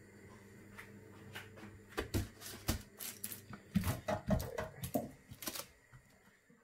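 Glass pot lid being set onto a foil-lined roaster pan and shifted by hand: from about two seconds in, a run of clicks and knocks as it settles on the rim, over a low steady hum.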